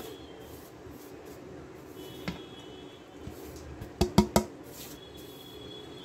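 A single click a little over two seconds in, then four quick sharp clinks about four seconds in: a ceramic plate knocking against the rim of a steel mixing bowl as dry spice powders are tipped in, over faint steady background noise.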